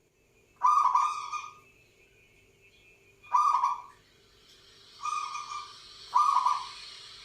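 Perkutut (zebra dove) cooing: four separate coos a second or two apart, the voice a keeper calls "berdengung" (humming).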